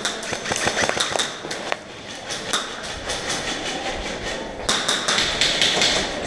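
Airsoft guns firing in rapid runs of sharp clicking shots, thickest at the start and again near the end.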